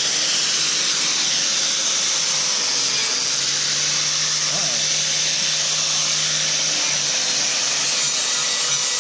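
Angle grinder with a flap disc running steadily against the edge of a steel plate, grinding the dross off the cut edge in one continuous high hiss.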